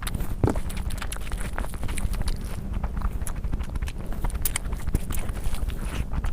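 Close-miked eating sounds: chewing and wet mouth clicks at an irregular pace over a steady low rumble.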